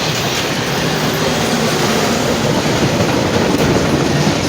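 Nickel Plate Road 765's train rolling past: a steady, loud rumble with wheels clattering on the rails.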